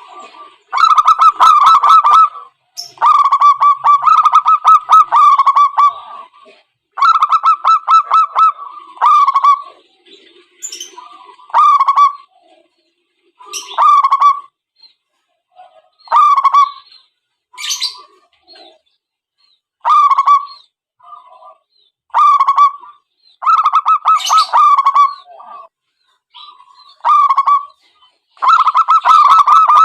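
Zebra doves cooing in bout after bout of quick pulsed notes, each bout half a second to two seconds long, with short gaps between them.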